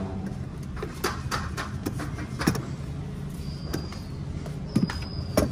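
Scattered clicks and knocks of a plastic car tail lamp housing and its bulb sockets being handled and brought up against the car's rear body, with a sharper knock about two and a half seconds in and two more near the end, over a steady low hum.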